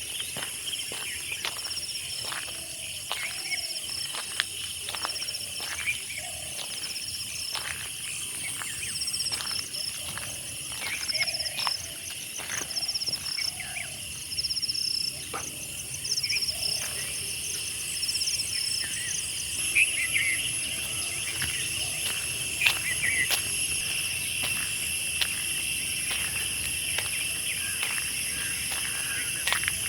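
Chorus of insects such as crickets trilling steadily at several high pitches, one of them chirping in short, evenly repeated pulses. Scattered sharp clicks and a few short, low calls are heard over it, mostly in the first half.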